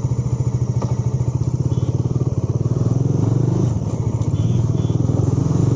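Bajaj Dominar 400's single-cylinder engine running steadily while riding, a fast, even exhaust beat heard from the rider's position.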